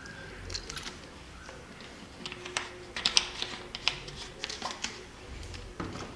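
Quick, irregular clicks and crackles of a plastic bottle being handled, with a duller knock near the end as the bottle is set down on a glass tabletop.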